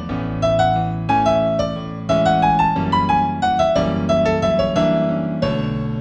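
Piano music in A major at a moderate tempo: a single-note melody that climbs and then falls back, over lower chords struck about once a second.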